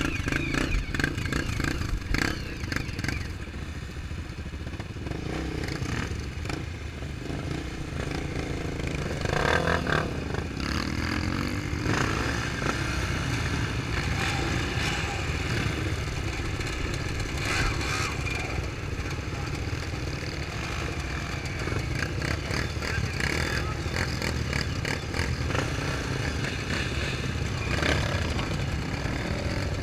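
Off-road vehicle engine running and revving, with rattles and knocks throughout.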